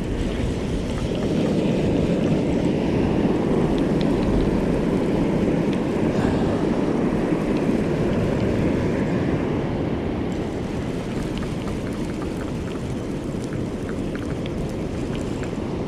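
Steady wash of surf with wind buffeting the microphone, and a few faint clicks through the middle.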